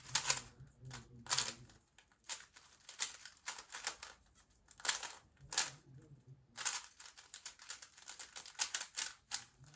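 GAN 356 M speed cube being turned fast during a timed solve: rapid, irregular clacking turns in quick clusters, broken by short pauses.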